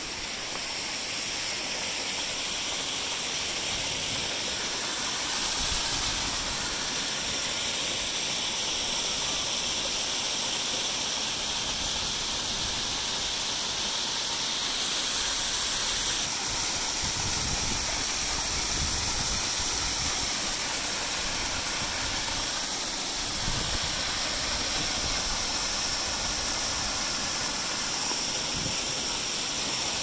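Waterfall: a steady, hissing rush of falling water that holds evenly without a break.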